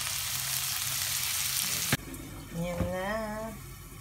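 Onions and garlic sizzling as they fry in oil in a pan. The sizzle cuts off suddenly about two seconds in, and a click and a short wavering tone follow.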